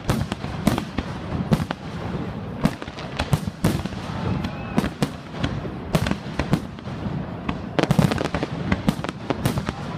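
Fireworks display: a rapid, irregular string of bangs and crackles, several every second, heaviest about eight seconds in.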